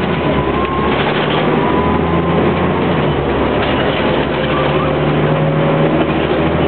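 Interior noise of a Flxible Metro D transit bus on the move: the engine running steadily, with road noise and a faint whine that slowly rises in pitch.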